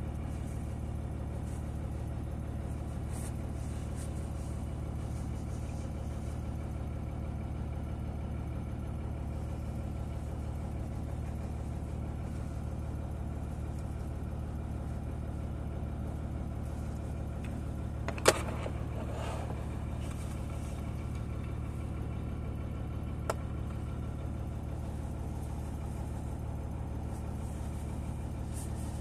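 Steady low machine hum running throughout, with one sharp click about 18 seconds in and a fainter click about 5 seconds later.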